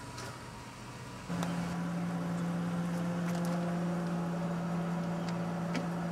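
A steady, low mechanical hum with a constant pitch, cutting in suddenly about a second in and holding unchanged.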